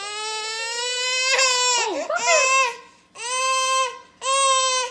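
Baby's long, high-pitched squeals, four in a row. The first is held almost two seconds and climbs a little in pitch; the last two are shorter and steady.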